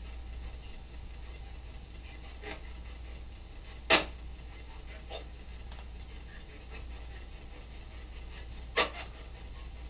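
Quiet room with a steady low hum, broken by a few sharp clicks: the loudest about four seconds in, another near the end, and a couple of faint ones between.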